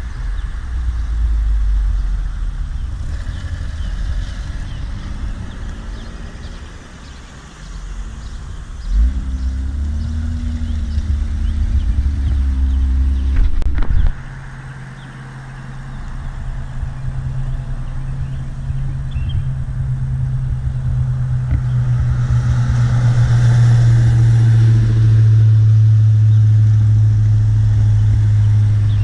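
Car engines running at low speed as vehicles roll in, a deep rumble. About halfway through one engine takes over with a steady low drone that grows louder as the car comes closer.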